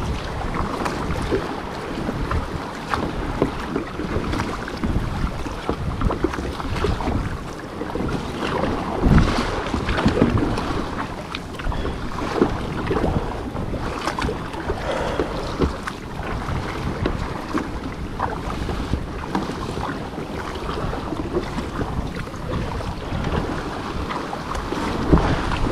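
Wind buffeting the microphone over sea water splashing and slapping irregularly against an ocean kayak as it rides the waves.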